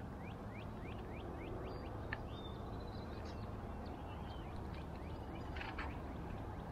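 Birds calling: a quick run of short, high chirps, thinning out after the first couple of seconds into a few whistled notes, over steady low background noise.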